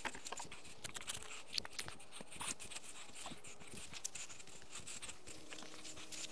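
Feet stamping and scuffing on loose, freshly backfilled soil to pack it down: faint soft thuds with scattered small crackles of dirt.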